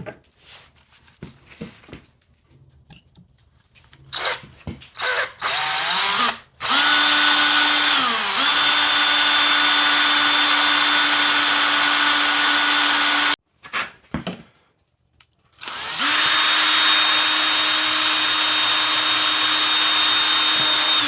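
Electric drill with a small bit drilling out a twisted-off exhaust manifold bolt in a John Deere 60 cylinder head. A few short bursts, then a long steady run whose pitch dips briefly as the bit loads up, a pause of a couple of seconds, then a second long run.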